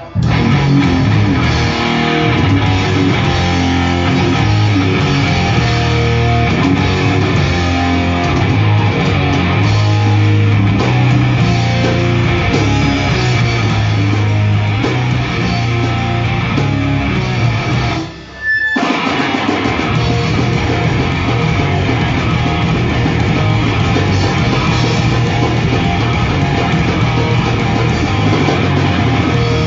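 Heavy rock band playing live: electric guitars and drum kit, loud and dense. The music cuts out for under a second about two-thirds of the way through, then the band comes back in.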